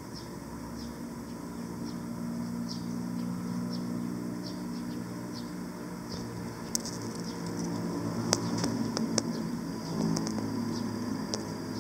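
Steady low hum of background noise with faint, irregular high ticks, and a few sharp clicks bunched about seven to ten seconds in.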